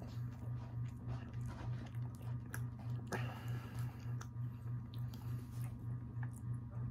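Chewing and biting a crumbly pan dulce cookie close to the microphone, with small mouth clicks and a brief louder crackle about three seconds in. A steady low hum pulses under it about four times a second.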